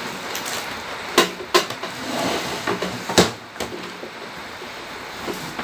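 Hard objects being handled on a workbench: three sharp knocks, the loudest about three seconds in, among lighter clatter.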